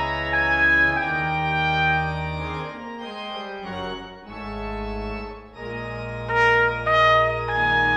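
Church organ playing held chords over deep bass notes, with a trumpet joining on bright sustained notes about six seconds in.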